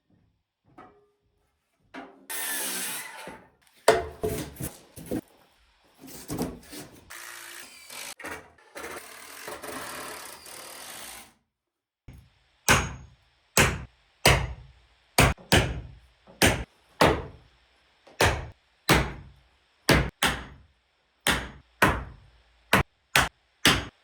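Hand-tool work: scraping and rustling, then from about halfway a steady run of sharp thumps, roughly two a second.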